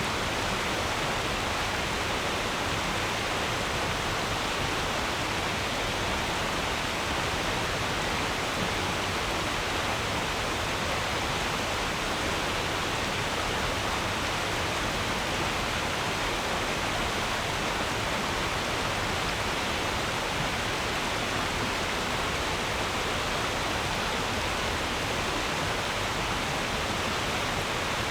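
Stream water babbling over stones in an even, unbroken rush.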